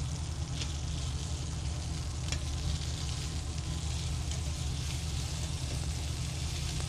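Filet mignon steaks searing in hot oil in a stainless steel skillet on a gas burner: a steady sizzle with a few sharp pops, over a steady low hum.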